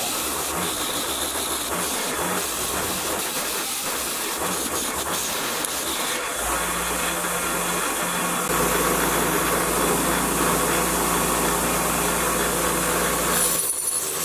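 Bench-mounted steel wire wheel switched on and running with a steady hiss, brushing rust off small metal toy-truck parts held against it. A steady low hum joins about halfway through.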